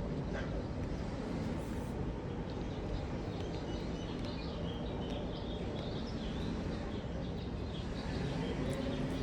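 Steady background rumble with faint, short bird chirps in the middle.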